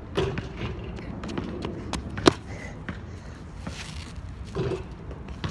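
A basketball thumping on an outdoor court a couple of times, with a sharp knock about two seconds in.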